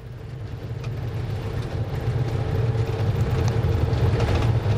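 Minibus engine and road rumble heard from inside the cabin while driving, growing louder over the first couple of seconds, then steady.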